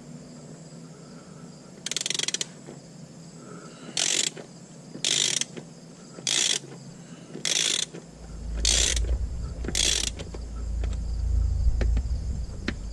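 Ratchet wrench on an extension loosening T30 Torx screws in an aluminium transmission case: a run of short ratcheting bursts, about one a second, as the handle is swung back between turns. A low rumble joins about eight seconds in.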